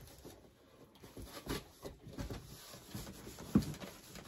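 Quiet scuffs and light knocks of cardboard and packaging as a Cricut Maker cutting machine is pulled out of its box. The loudest knock comes about three and a half seconds in.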